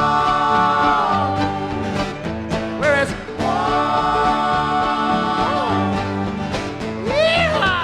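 Live bluegrass-style band music with voices holding long sung notes over the strings. One held note trails off about a second in, another is held from a few seconds in, and a quick swooping vocal slide comes near the end.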